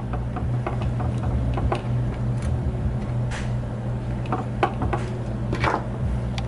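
Irregular light clicks, taps and short scrapes of a small screwdriver and fingers working on the plastic camera gimbal of a DJI Phantom 4, over a steady low hum.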